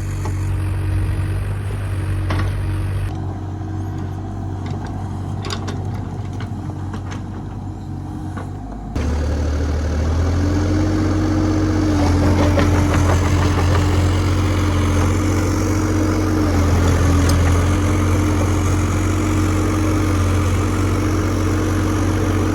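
Kubota U30 mini excavator's diesel engine running steadily. About a third of the way in it abruptly gets louder, and its pitch then dips and rises slightly a few times.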